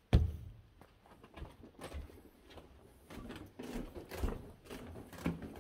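Footsteps walking down an indoor staircase, a dull thud roughly every half second. There is one much louder thump right at the start.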